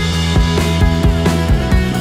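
Background music with a steady drum beat over sustained low notes.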